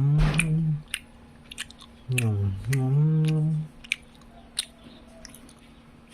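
A person chewing fried tempe, with scattered small crunchy clicks. Twice the eater's voice gives a long low hum with the mouth closed, which dips in pitch and then rises and holds.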